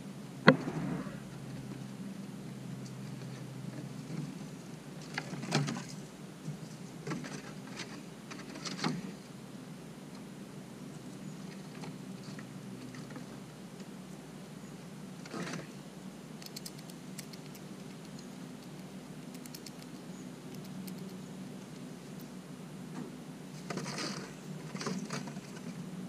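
Eastern gray squirrel feeding close up on a sweet potato and seeds atop a concrete stone: scattered scratches, taps and nibbling clicks, the sharpest and loudest about half a second in. There is a steady low hum underneath.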